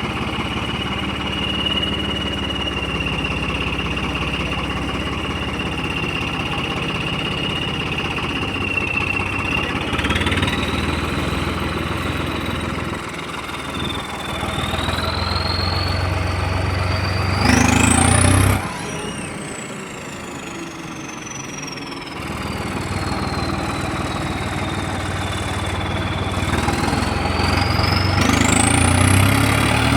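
Farmtrac 60 tractor's diesel engine running and being revved, with a high whine that rises and falls with the revs. The revs climb to a peak about eighteen seconds in, drop off suddenly and wind down slowly, then climb again near the end.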